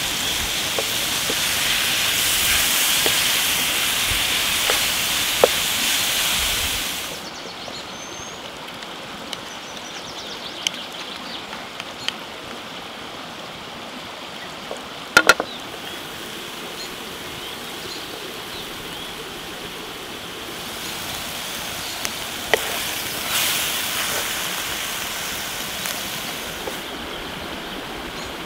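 Beef pieces sizzling loudly in hot oil in a pan over a wood fire. About seven seconds in it gives way to a softer sizzle of chili spice paste frying in a wok, stirred with a wooden spatula, with scattered clicks and one sharp knock about halfway.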